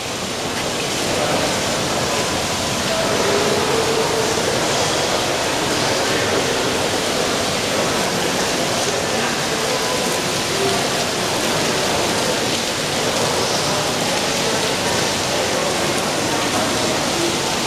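Indoor wall waterfall: water cascading down a tall wall in a steady, even rush.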